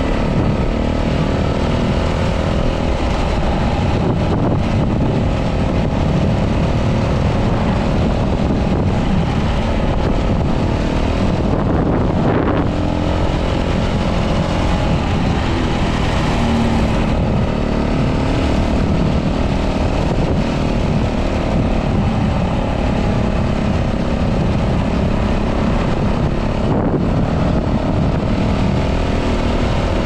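Wind rumbling steadily on the microphone of a GoPro Hero 11 Mini mounted on a 125cc motorcycle under way, with the small engine running underneath.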